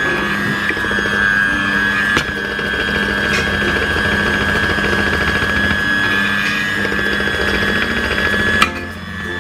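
Electric hand mixer running steadily, its beaters whisking pancake batter in a bowl, with background music playing over it.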